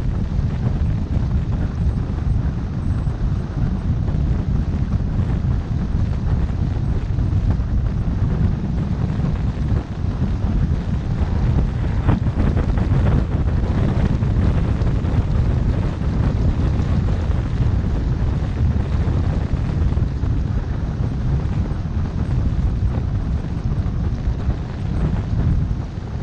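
Steady low wind rumble on the microphone and road noise from a car driving at road speed, with a little more hiss about halfway through.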